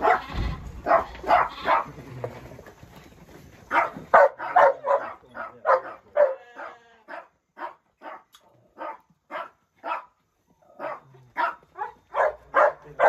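A dog barking over and over in quick runs of short barks, about two a second, with a pause of about two seconds near the start.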